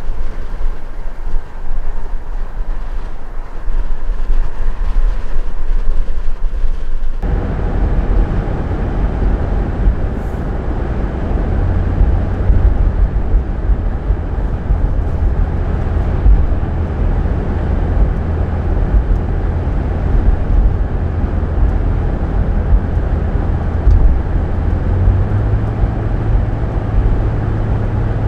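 Steady road and wind noise of travel on a snowy interstate. About seven seconds in it changes abruptly to a louder, deeper, steady rumble, typical of driving a vehicle on the highway.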